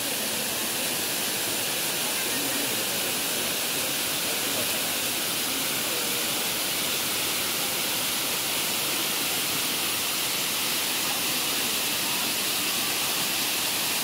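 Tall, narrow mountain waterfall plunging down a rock face: a steady, even rush of falling water, mostly a high hiss.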